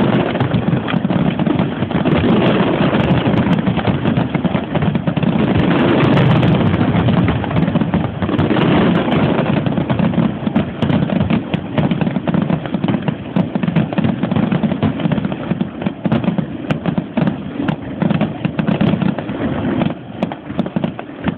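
Fireworks finale: a dense, unbroken barrage of aerial shell bursts and crackle, thinning out near the end.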